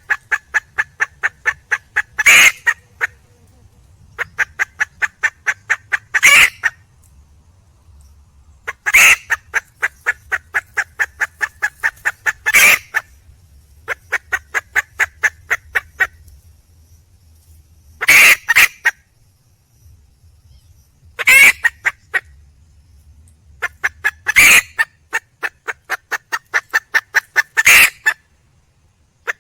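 Junglefowl hen calling: runs of quick, evenly spaced clucks, about five a second, each run ending in a louder, longer cackle, repeated every few seconds. It is a hen's call to attract a rooster.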